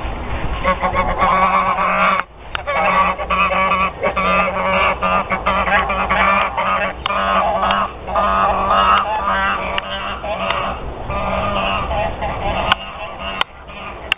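White domestic geese honking over and over, several calls overlapping at once, thinning out near the end.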